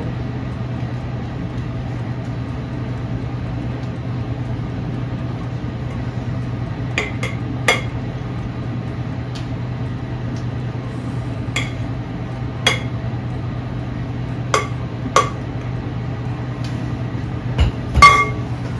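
Light clinks and knocks of a mixing bowl against a metal cake ring and baking tray as thick cheesecake batter is poured and scraped out, a few scattered through the pour, the loudest a double knock near the end. A steady low hum runs underneath.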